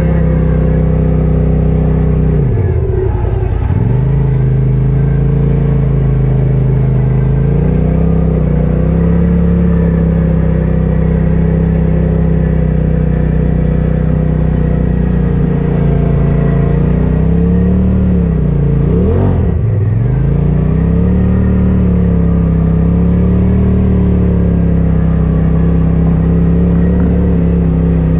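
Polaris RZR side-by-side's twin-cylinder engine running at steady revs while driving along a muddy trail, heard from inside the cab. The revs drop and pick back up about three seconds in, and again about twenty seconds in.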